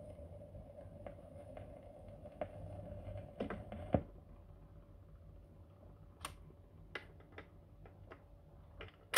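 Record-player autochanger at the end of a 45 rpm single: faint steady hum with light ticks while the stylus rides the run-out groove, then a sharp click about four seconds in as the tonearm lifts and the hum stops, followed by a few scattered mechanical clicks as the arm swings back to its rest.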